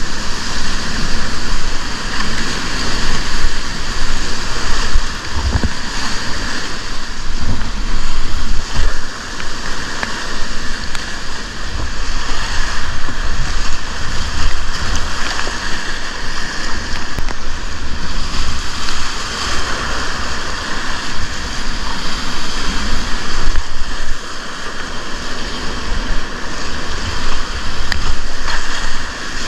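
River rapids rushing, a loud, steady wash of churning whitewater, with low, uneven buffeting on the microphone.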